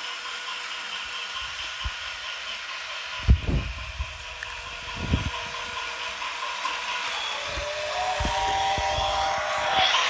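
Small electric motor of a battery-powered toy train whirring steadily, with a few low knocks. About seven seconds in, a second tone joins and the sound grows louder toward the end.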